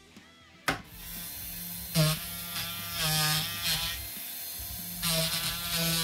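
A click just under a second in, then a handheld electric rotary tool runs and grinds into the wooden crossbow stock, its whine dipping in pitch and getting louder each time the bit bites into the wood.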